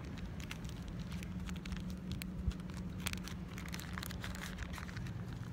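Hands handling a small geocache container and its rolled paper log: scattered light crinkles and clicks over a steady low hum.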